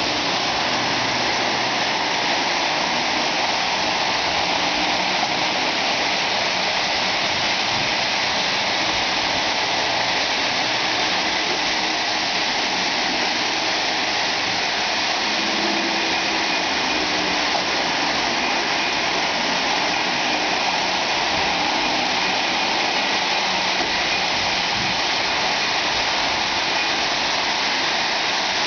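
Lionel O-gauge die-cast 4-4-2 steam locomotive and its passenger cars running on the layout's three-rail track: a steady rushing rumble of the metal wheels rolling, with a faint motor hum underneath.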